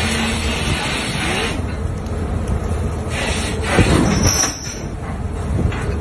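Fishing trawler's engine and deck machinery giving a steady low rumble, with wind and rushing sea water swelling and fading twice, about a second and a half in and again around three to four seconds in.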